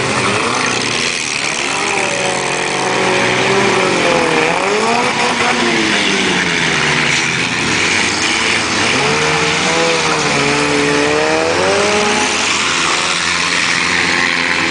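Engines of four-cylinder demolition derby cars revving, their pitch climbing and dropping again and again, over a steady din of running engines.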